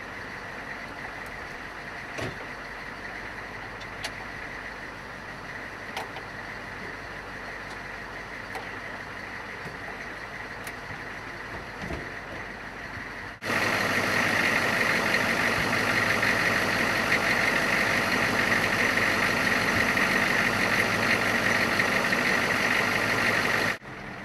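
Humvee diesel engine idling steadily, with a few light knocks of gear being handled. About halfway through it cuts to a much louder, closer idle with a steady high hum, which cuts back to the quieter idle near the end.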